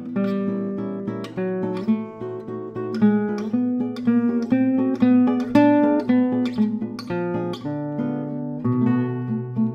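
Nylon-string classical guitar played solo, fingerpicked single notes and chords ringing over moving bass notes.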